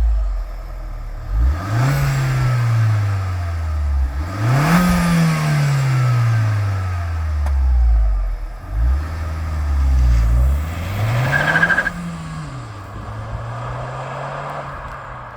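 Alfa Romeo Brera 1.75 TBI's turbocharged four-cylinder petrol engine revved through its exhaust four times, each time climbing quickly and falling back more slowly. It settles to a steady idle near the end.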